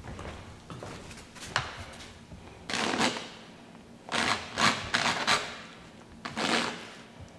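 A hand-held painting tool scraping and dragging across wet oil paint on a stretched canvas in a series of short rasping strokes, each a second or less long.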